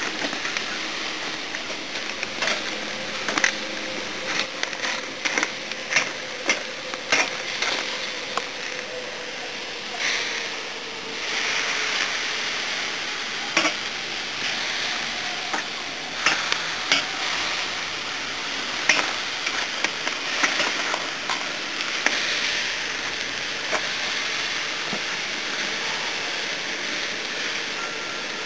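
Thin-sliced beef and chiles sizzling on a grill grate over coals, with frequent sharp clicks and scrapes of metal tongs against the grate and food as they are turned, busiest in the first third.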